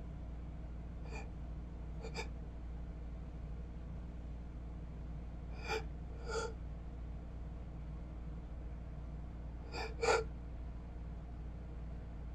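A person's short, sharp intakes of breath, about six of them coming roughly in pairs, the last pair the loudest near the end, as a stuck sneeze builds but does not come out.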